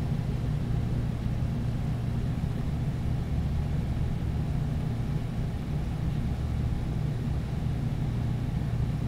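Steady low rumbling hum of background noise, with no distinct events.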